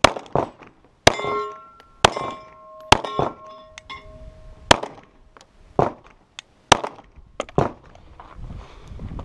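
Glock 17 Gen 4 9mm pistol fired in a string of sharp shots, roughly one a second with some quicker pairs. Steel targets hit in the first few seconds ring with clear tones that hang on for up to a second.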